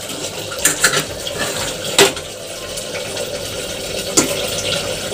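Metal spoon clinking and scraping against metal cooking pots as fried potatoes are scooped from a kadai into a pressure cooker: a few sharp clinks, the loudest about two seconds in, over a steady faint hiss.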